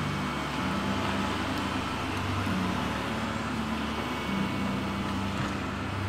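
Kubota MX5200 tractor's diesel engine running steadily as the tractor moves slowly.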